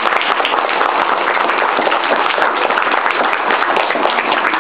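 Audience applauding in a hall, a dense patter of many hands clapping with voices in the crowd.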